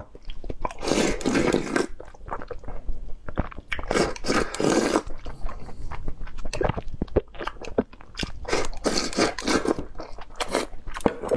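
Close-miked eating: a person chewing mouthfuls of rice with raw marinated swimming crab, with many small clicks and three louder mouth noises about a second long each.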